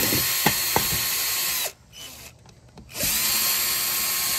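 Cordless drill-driver running while backing screws out of a string trimmer's carburetor. It runs with a steady whine, stops about a second and a half in, then starts again about three seconds in.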